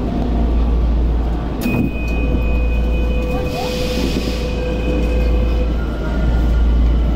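Tokyo Metro 02 series train with permanent-magnet (PMSM) traction motors pulling away from a station. A clunk comes about a second and a half in, then the motor drive gives a steady high whine with a lower tone beneath it for about four seconds as the train starts to move. A constant low rumble runs underneath.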